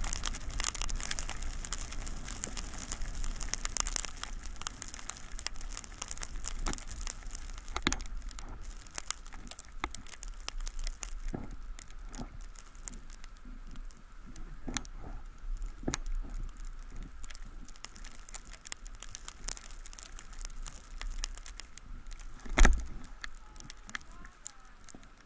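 Skis sliding and scraping over snow, a hiss full of crackling edge chatter that is dense at first and thins out as the skier slows. A single sharp knock comes near the end.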